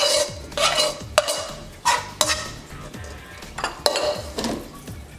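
A spoon scraping and clinking against a bowl and a glass baking dish as a rice mixture is scooped out and spread, in a series of short strokes.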